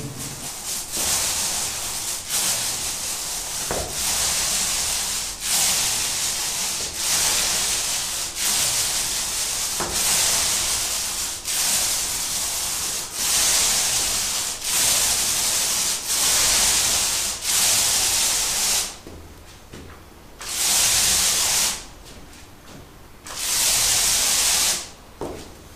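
Paint roller on an extension pole rolling water-based matt emulsion onto a wall: a hissing swish with each stroke, about one stroke every second and a half, with a couple of short breaks in the last third.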